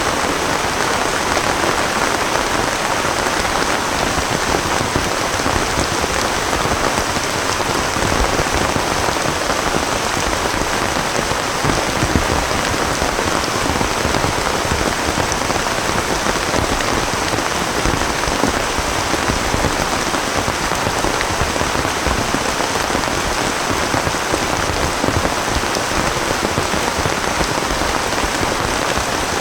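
Heavy rain falling steadily, a dense, even patter of drops hitting a surface.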